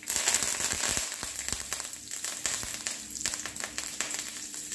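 Fresh curry leaves spluttering in hot tempering oil: a sudden sizzle full of sharp crackles and pops, loudest at first and then settling into a steady frying crackle.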